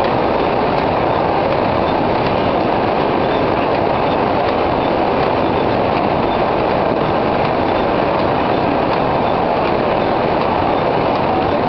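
Automatic square-bottom paper bag making machine running, a loud, steady mechanical clatter.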